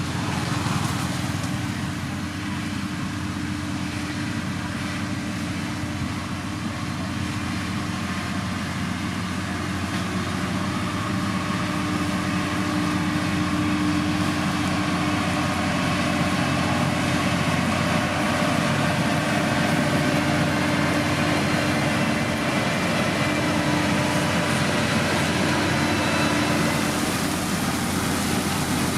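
Diesel engine of heavy road-building machinery running steadily, growing a little louder about a third of the way in.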